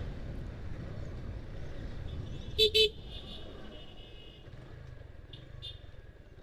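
A vehicle horn gives two short beeps about two and a half seconds in, over a low steady road rumble from the motorcycle ride.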